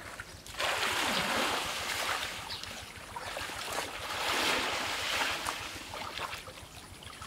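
Muddy water splashing and sloshing in swells as people wade through a shallow pond and grope in it for fish.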